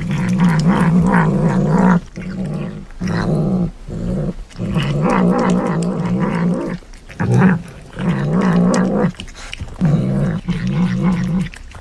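Domestic tabby cat growling as it eats, a wavering growl in long bouts broken by short pauses.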